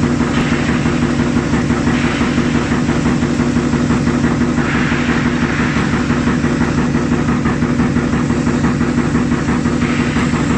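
Wuxi JACK plate edge milling machine cutting a weld bevel along a carbon steel plate: a steady machine drone with a strong hum, and a hissy cutting noise that swells and fades every few seconds.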